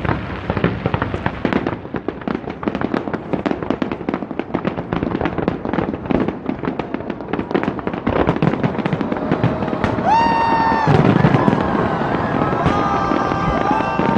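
Fireworks going off in a rapid, continuous string of cracks and bangs. About ten seconds in, several long high-pitched tones join in over the bursts.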